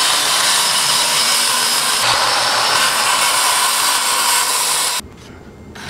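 Corded circular saw running under load as it cuts through a plywood sheet. It stops abruptly near the end.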